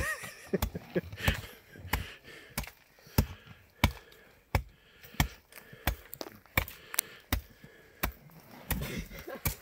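Short-handled axe chopping into packed snow and ice in a steady rhythm, about fourteen sharp hits, roughly three every two seconds.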